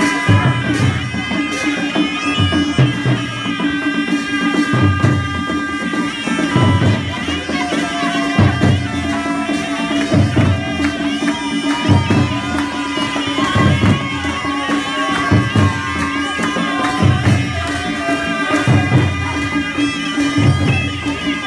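Nepali panche baja band playing folk dance music: reedy wind instruments and trumpets carry the melody over a steady held drone note, while a dholaki barrel drum beats deep strokes in a regular rhythm.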